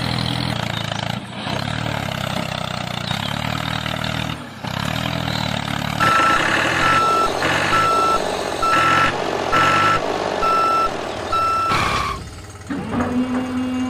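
A vehicle engine runs steadily. About halfway through, a reversing alarm starts beeping at one pitch, roughly once a second, about seven times. After a brief drop, a steady hum starts near the end.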